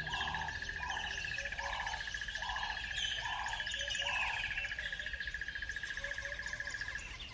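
Birds chirping and twittering over a steady, rapidly pulsing high trill that stops just before the end. Beneath them, a low call repeats about six times, under a second apart, and ends a little after four seconds in.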